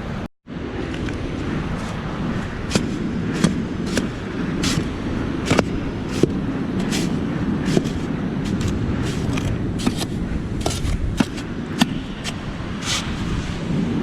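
Shovel digging into beach sand, with sharp scrapes and clinks roughly once a second over a steady rushing background.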